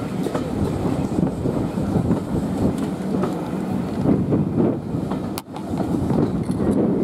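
Rumble and rattle of a railway passenger carriage running along the track, heard at an open carriage window. A single sharp click about five seconds in.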